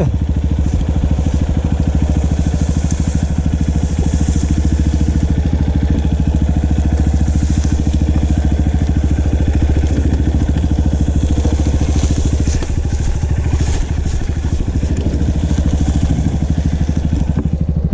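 Trail motorcycle engine running steadily at low revs with an even, unchanging beat and no revving.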